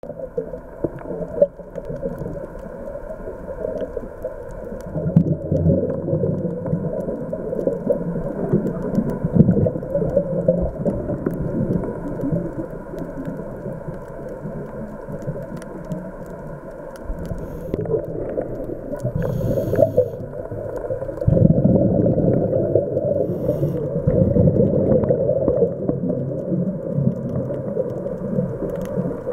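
Muffled underwater sound of a scuba diver breathing through a regulator, the exhaled bubbles rumbling in long louder stretches about five seconds in and again from about twenty-one seconds.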